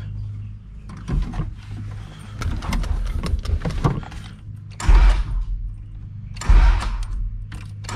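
Acura Integra being started from the ignition key: small key and switch clicks, then three short, loud start attempts about a second and a half apart, over a steady low hum.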